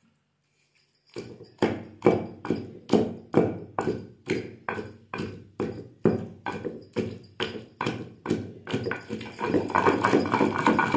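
A pestle pounding peanut chutney paste in a heavy stone mortar, with dull, regular strokes about two a second starting a little over a second in. Near the end the strokes come faster and run together into a steadier mashing and grinding.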